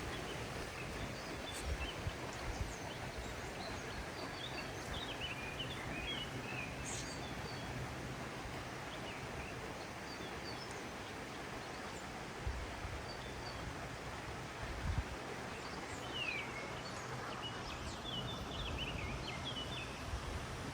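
Small birds chirping in quick runs of short high notes, in two spells, over a steady outdoor background hiss. A few brief low thumps occur along the way.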